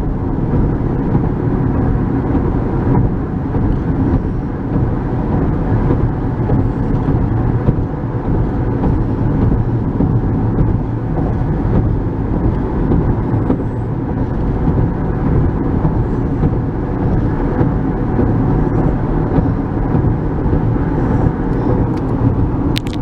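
Steady road and engine noise of a moving car, heard from inside the cabin: an even, unbroken rumble.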